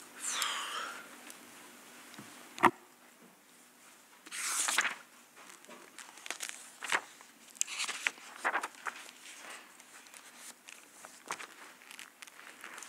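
Papers being handled and shuffled at a desk: rustling, with scattered light clicks and one sharp knock about two and a half seconds in.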